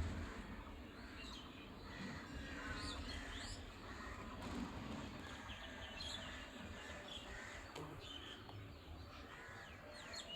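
Outdoor morning birdsong: many small birds chirping in short, quick calls, with crows cawing now and then, over a low rumble.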